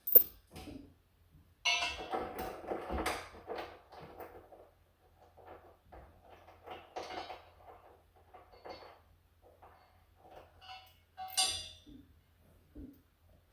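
Intermittent metal clinks, scrapes and rattles of a nut and washer being worked onto a receiver hitch bolt under a car: a sharp click at the start, a burst of scraping a couple of seconds in, then scattered faint clinks and a short scrape near the end.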